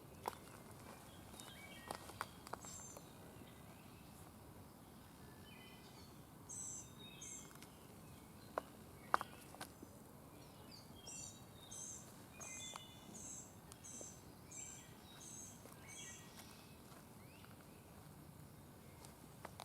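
Faint outdoor ambience with a bird calling: short, high chirps repeated in runs, about two a second through the second half. A few sharp clicks are scattered through it, the loudest about nine seconds in.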